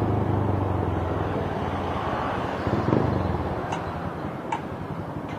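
Motorcycle with an Akrapovic aftermarket exhaust running under way, its low steady exhaust note fading after about a second and a half as it eases off, leaving road and wind noise with a brief swell about three seconds in.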